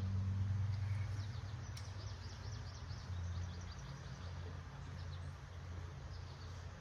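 A small bird sings a rapid trill of quick, high chirps from about a second in, lasting a couple of seconds, over a steady low rumble.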